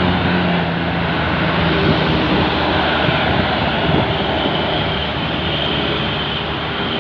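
Large tour bus passing close, its diesel engine and tyres making a loud, steady rumble of engine and road noise. A low engine note fades out in the first second or so.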